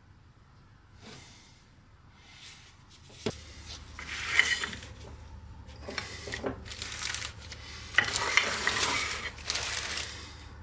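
Small metal parts of a hedge trimmer gearbox being handled and fitted together, clinking and scraping, with a sharp click about three seconds in and stretches of rubbing after it.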